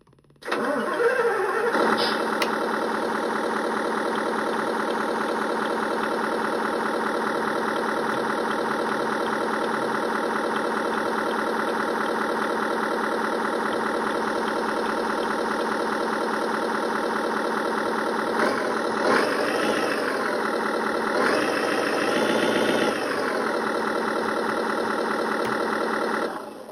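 Simulated engine sound from an ESP32 RC engine sound controller, played through two small speakers: the engine starts about half a second in and idles steadily. It revs up briefly twice near the end, then shuts off.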